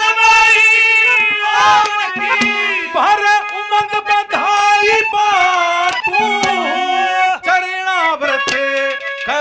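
A male voice singing a Haryanvi ragni, with held melodic notes and hand-drum strokes beneath it.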